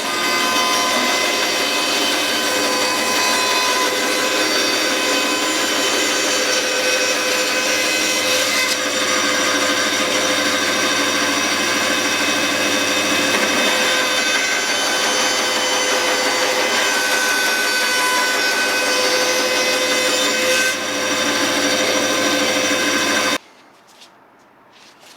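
Power saw running steadily with a whine, cutting a small wedge from a walnut offcut; it stops abruptly near the end.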